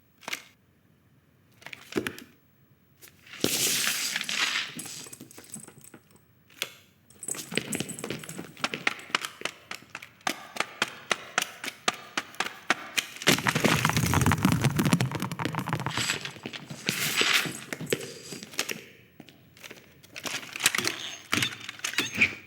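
Animated-film sound effects with no dialogue or music: a dense run of small, rapid clicks and clatters of hard objects. Swishes come a few seconds in and again later, and a deeper rumble swells up in the middle.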